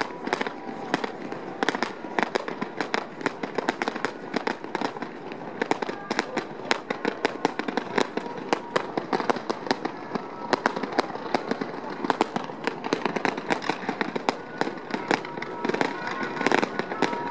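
Fireworks display: shells bursting and crackling in quick, continuous succession, many sharp bangs a second with no pause.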